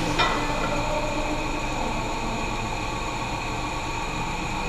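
Steady mechanical hum and hiss of gym background noise, with one short knock just after the start.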